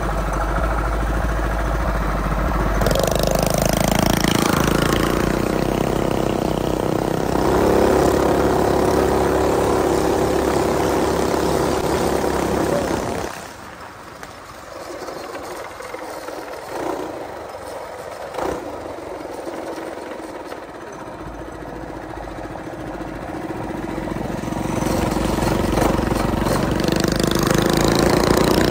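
Coleman BT200X mini bike's small engine under way. Its pitch rises about three seconds in, then holds steady. About halfway through it drops back to a much quieter low running, then builds up again and holds steady near the end.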